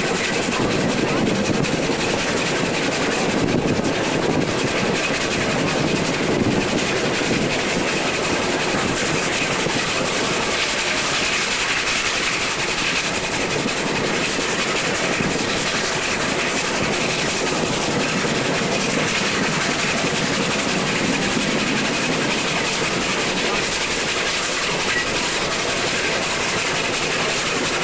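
Steam-hauled train running steadily, heard from an open carriage just behind the locomotive: a constant noise of wheels on rail and the carriage moving along.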